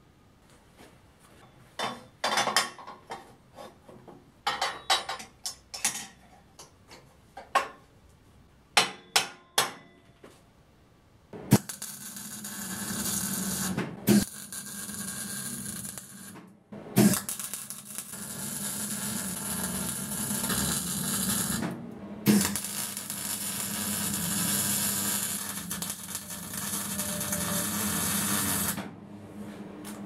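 Scattered metal clinks and short taps for about the first ten seconds, then a MIG welding arc crackling and hissing in long runs of several seconds. The runs are broken by brief stops between beads and end about a second before the close.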